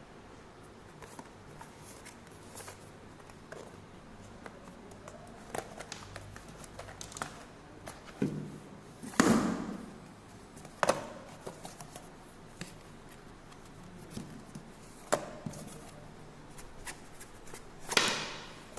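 Hands handling a power bank, its box and packaging: scattered light clicks and rustles, with a few louder knocks and scrapes. The loudest comes about nine seconds in, and a longer rustle comes near the end.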